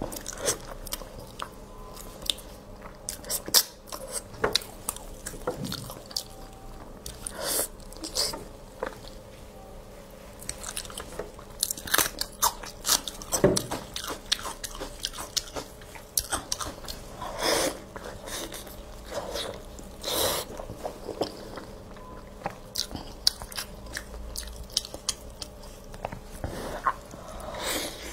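Close-miked eating of braised pork: biting and chewing with wet mouth sounds and many irregular sharp clicks.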